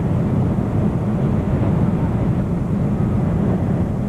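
Boeing 747-400's engines and rushing airflow, heard inside the passenger cabin as a steady, even low rumble.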